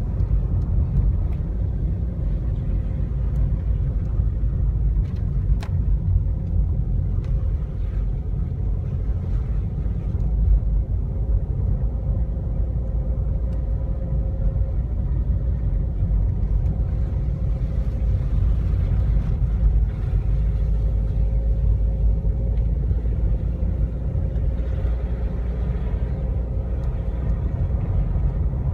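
Car driving along, a steady low rumble of engine and road noise, with a faint steady hum above it and a few light ticks now and then.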